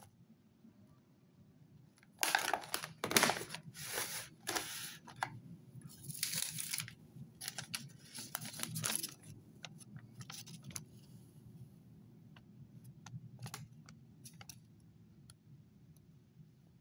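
A paper till receipt being picked up and unfolded: a run of crackling rustles over several seconds, then a few light crinkles and taps.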